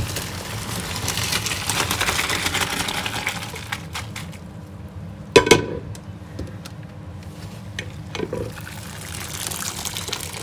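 Pot of boiled small onions and their hot water poured into a strainer, a rush of draining water for about four seconds. A loud metal clank with a short ring comes about halfway through, a lighter knock follows, and water runs again near the end.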